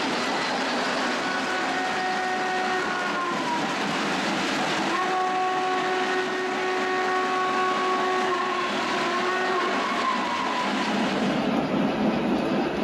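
Lionel Vision Line N&W Class A model steam locomotive's onboard sound system blowing its steam whistle twice, a shorter blast and then a longer one, each sagging in pitch as it ends. Under it runs the steady rolling noise of O gauge trains on the layout track.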